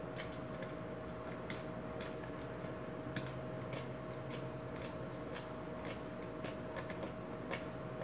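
Irregular light clicks and taps as small electric-fan parts are handled and fitted together during reassembly, over a steady faint hum.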